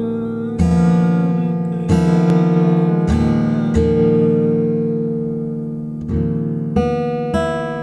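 Acoustic guitar background music: slow strummed chords, a new chord every second or so, each left to ring and fade.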